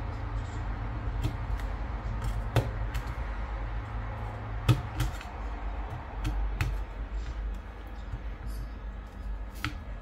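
Scattered clicks and knocks of small tools and parts being handled on a workbench during an electronics repair, over a steady low hum.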